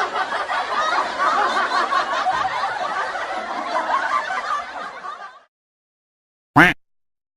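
Crowd laughing sound effect: many people laughing together, fading out about five seconds in. After a short silence, a single brief duck quack near the end.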